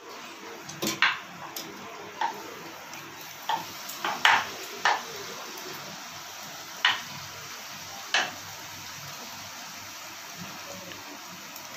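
Luchi deep-frying in hot oil in a kadai: a steady sizzle, broken by about ten sharp taps and clicks in the first eight seconds.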